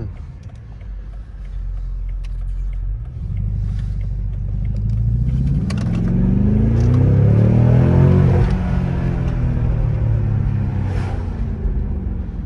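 A car engine and exhaust rising in revs and getting louder to a peak about eight seconds in, then easing off and falling away.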